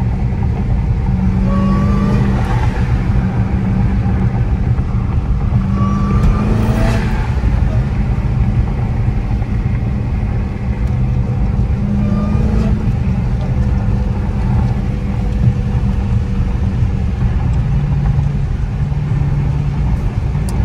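Dodge Hellcat's supercharged V8 running while driving, a steady low rumble with road noise, its pitch stepping up and down as engine speed changes.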